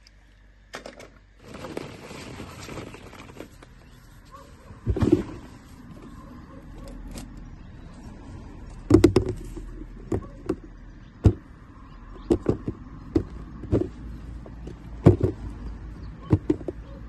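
Plastic toys being handled: a string of sharp clicks and knocks, about a dozen in all, as a plastic surprise egg is turned in the hand and pulled open.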